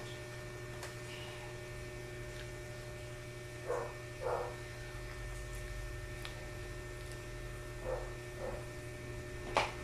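Steady electrical hum, with a few short, soft mouth sounds from a child chewing a banana, the sharpest near the end.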